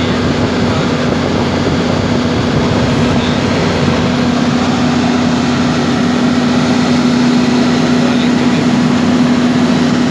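Volvo EC210B excavator's six-cylinder diesel engine running at a steady speed with a newly fitted Bosch injector in place of a leaking one.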